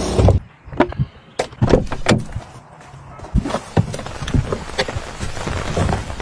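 A string of sharp taps and knocks, then a steady rustle, as bedding is laid out on the hard cargo floor of an SUV.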